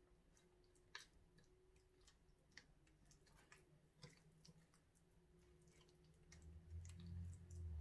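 Faint soft squishing and small scattered clicks of hands working hilsa fish steaks into wet mustard paste in a steel bowl, with a low rumble near the end.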